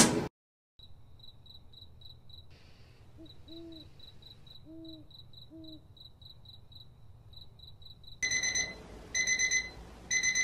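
Night ambience of crickets chirping steadily and faintly, with an owl hooting three times. From about 8 seconds a digital alarm clock beeps loudly in three bursts of rapid beeps.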